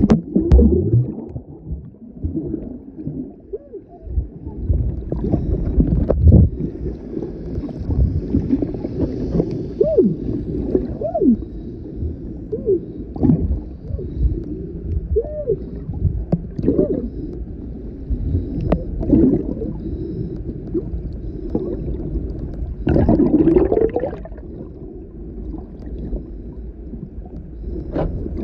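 Muffled underwater noise picked up by a camera below the surface: water rushing and gurgling as a swimmer moves, with short squeaky rising-and-falling tones and scattered clicks. There is a louder spell of bubbling late on.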